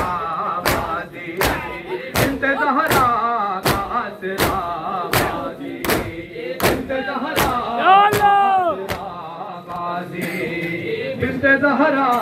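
Male mourners chanting a nauha together in Urdu, kept in time by rhythmic matam, hand slaps on the chest, about every three-quarters of a second. A single long voice rises and falls about eight seconds in, and the slaps fade soon after.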